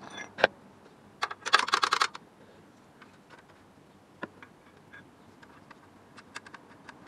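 Metal clicks of a spanner working an alternator mounting bolt. There is a sharp click near the start, a quick run of clicks about a second and a half in, then scattered light ticks.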